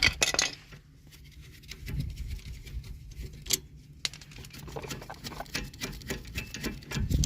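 Pry bar levering between the brake pad and caliper, irregular metal clicks and scrapes, loudest at the start, as the rear caliper piston is pushed back into its bore.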